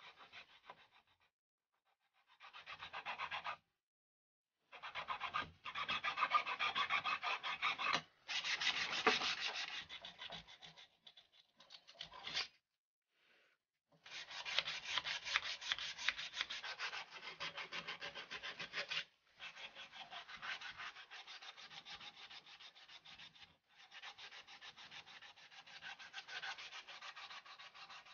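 A flat steel blade scraping the surface of an old wooden axe handle in runs of quick strokes, with several short silent breaks.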